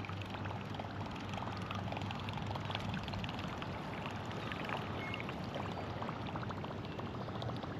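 Steady wash of water and wind around a small fishing boat, with small splashes and lapping ticks throughout.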